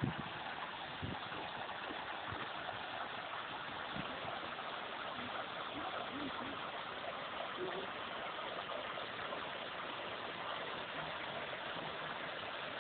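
Spring water of the Semois source flowing into a stone basin: a steady, even hiss of running water.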